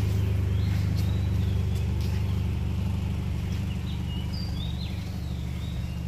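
Honda Civic engine idling, a steady low hum that eases slightly after a couple of seconds, with birds chirping over it.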